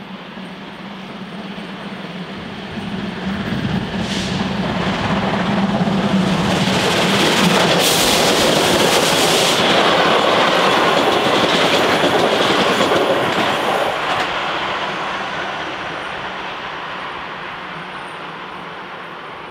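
Passenger train hauled by the class 01.5 steam locomotive 01 519 passing close by: the sound builds as it approaches, the coaches' wheels run past on the rails, and it fades as the train recedes. A sharp, loud hiss comes about eight seconds in.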